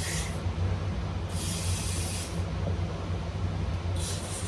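Aerosol carburettor cleaner hissing in three short squirts through an extension straw into a carburettor's passages: one dying away just after the start, a longer one of about a second, and another near the end. Underneath runs a steady low hum.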